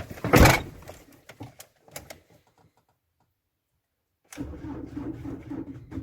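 A loud knock and a few light clicks. Then, from about four and a half seconds in, the Ford Transit's starter clicks rapidly in a steady buzz without cranking the engine as a start is tried. This is the van's starting fault, even with a booster pack connected.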